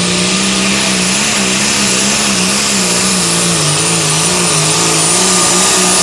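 Pro Stock pulling tractor's turbocharged diesel engine running flat out under the load of the sled. Its note rises and falls about twice a second under a steady high turbo whine.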